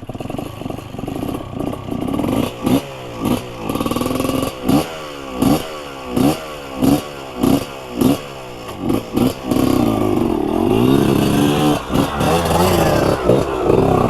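Two-stroke dirt-bike engine revved in quick repeated blips, each rev rising and falling sharply, then held at higher revs with more sweeps in the last few seconds.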